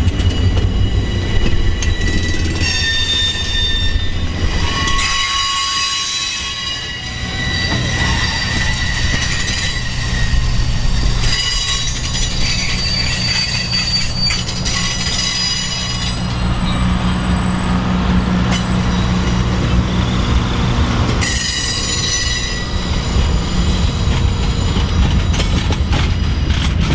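Train wheels squealing as a passenger train's coaches, gondola and caboose roll past, high ringing squeals that come and go over a steady low rumble of the cars on the rails.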